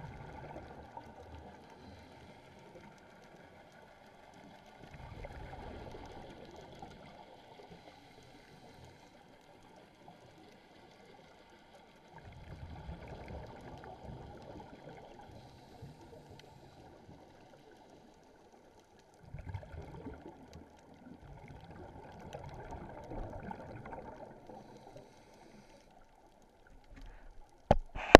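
Scuba diver breathing underwater through a regulator: three long bubbling exhalations about every seven seconds, with a faint hiss between them. A sharp knock comes right at the end.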